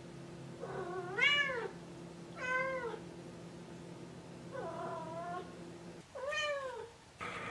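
Domestic cat meowing four times at a closed door, each meow rising and then falling in pitch, the third one flatter and wavering.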